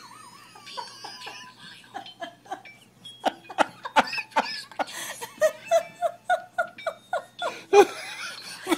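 A person laughing in a run of short, rhythmic bursts that grow louder near the end.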